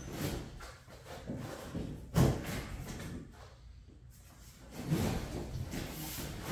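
Large cardboard shipping box being handled: irregular scraping and rubbing of cardboard, with a sharp knock about two seconds in and busier scraping near the end.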